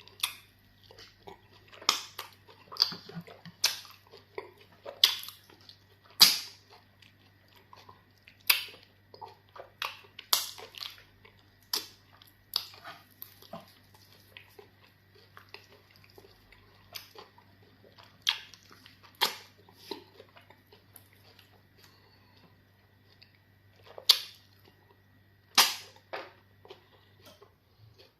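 Close-miked eating of fufu with okra soup: wet mouth smacks and chewing clicks at irregular intervals, several of them sharp and loud, over a faint steady hum that stops near the end.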